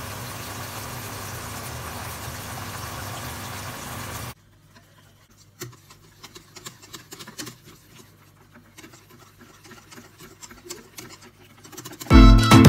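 Breaded chicken deep-frying in hot oil, a steady sizzle that cuts off about four seconds in. Then a wire whisk stirring a thick mixture in a metal bowl, with light, irregular clicks and scrapes. Music starts near the end.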